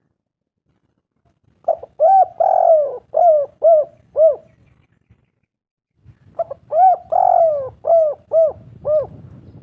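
Spotted dove (tekukur/derkuku) singing two coo phrases. Each phrase is a couple of short coos, one longer drawn-out coo, then three quick coos, with a pause of about two seconds between the phrases.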